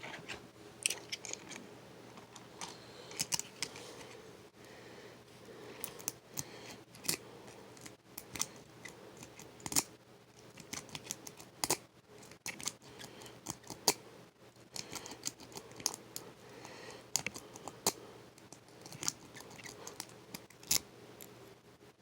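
Lock pick and tension wrench working inside a Hyper Tough laminated steel padlock: irregular small metallic clicks and scrapes as the pins are worked, with a few sharper clicks standing out.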